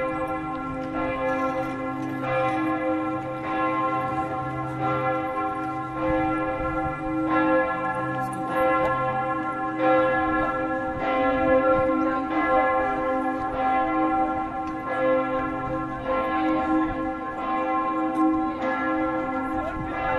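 Single large swinging church bell, bell 1 of Würzburg's Neumünster, ringing alone with a strike about every 1.2 seconds, each stroke's hum lingering into the next. This is Vorläuten, the preliminary ringing that calls people to a service.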